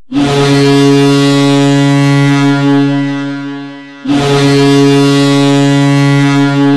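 Ice hockey goal horn blowing two long, steady, low blasts. The first lasts about four seconds and fades toward its end; the second starts straight after it.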